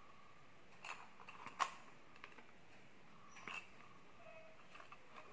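Faint plastic clicks and taps from a brush cutter's trimmer-head spool, wound with nylon cutting line, being handled and fitted into its housing. There are a few sharp clicks about one second in, another half a second later, and one more around three and a half seconds in.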